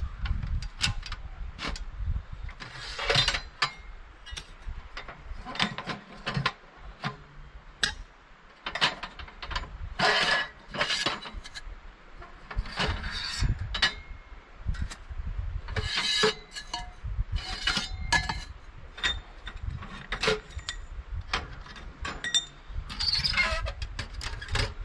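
Irregular metal clinks, knocks and scrapes of a small metal tent wood stove being handled and put together, its door, legs and stovepipe parts fitted by hand.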